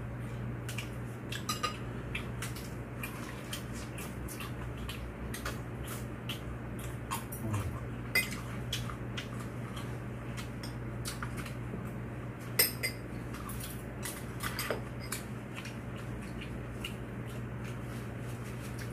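Eating utensils tapping and clinking against dishes and bowls during a meal, in scattered small clicks with a few sharper clinks. A steady low hum runs underneath.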